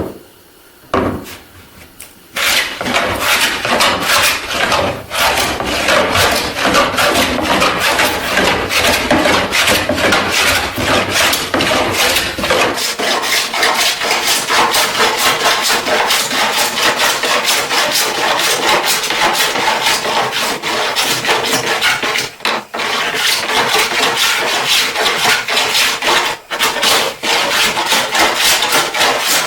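Hand plane shaving a glued-up wooden panel, one rasping stroke after another with hardly a break, working the surface down flat. A single knock about a second in comes before the planing starts.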